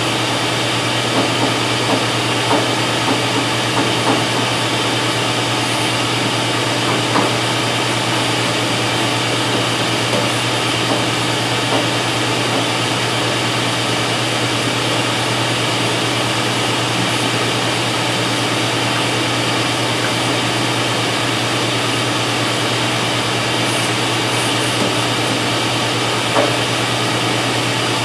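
Shop vac running steadily, its hose nozzle sucking dust off a commercial refrigerator's condenser coil, with a few light ticks.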